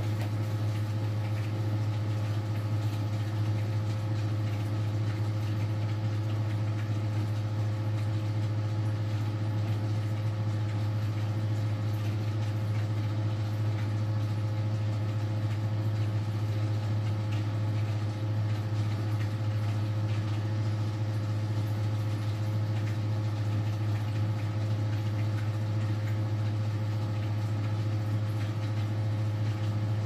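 Small electric descaling pump running with a steady low hum, circulating vinegar through a tankless water heater to flush out scale.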